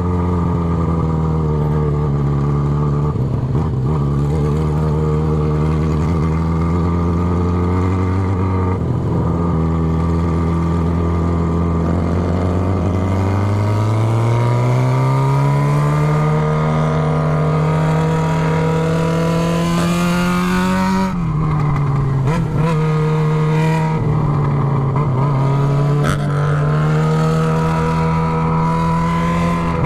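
Yamaha XJ6's 600 cc inline-four running loud on its bare header pipe with the muffler end can removed. It holds a steady note, then rises in pitch as the bike accelerates from about halfway, drops sharply a little past two-thirds of the way through as the throttle closes or it shifts, and climbs again near the end. Wind hiss rises while the bike is going fast.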